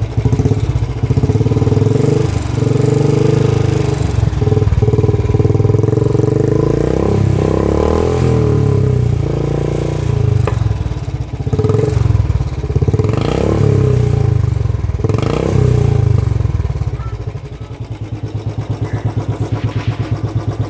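Royal Enfield Bullet single-cylinder engine through a Barrel Cannon 2.0 aftermarket exhaust, loud, revved up and down in repeated blips. Near the end it drops back to a steady pulsing idle.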